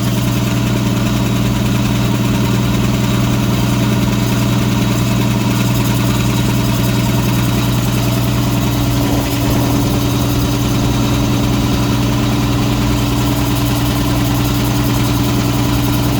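Homemade air compressor running steadily, its electric motor driving a two-stage piston pump that is filling the tanks with an even, unbroken drone.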